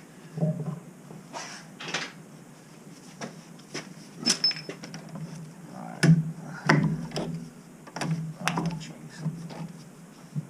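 Irregular metallic clinks and knocks from copper pipe, fittings and tools being handled, each a short sharp hit, the loudest about six to seven seconds in, over a steady low hum.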